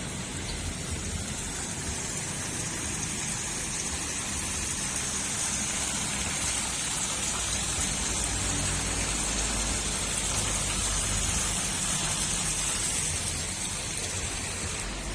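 Water from several small waterfalls splashing steadily into a koi pond.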